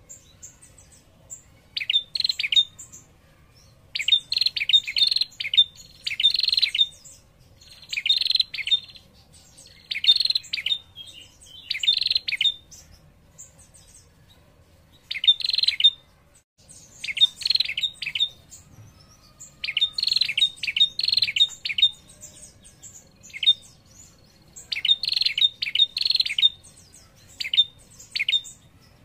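A caged female prenjak, a tailorbird, calling in short bursts of rapid trilled notes (the female's 'ngetir' call) about every one to two seconds, with a brief pause midway. This is the female's call used to lure a male prenjak into answering.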